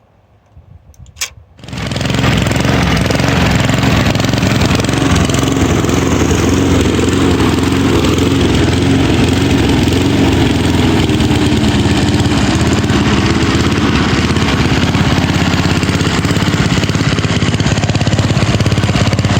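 A Mountfield SV150 single-cylinder lawnmower engine catches after a sharp click about a second in, then runs fairly steadily at a constant speed.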